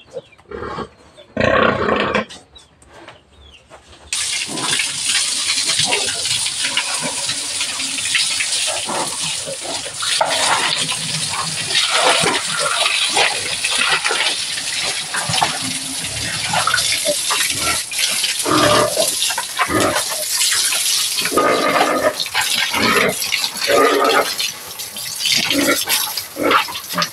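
Garden hose spraying water onto a pig and splashing on the concrete pen floor, starting suddenly about four seconds in and running steadily. Pig grunts come before the spray starts and break through it now and then.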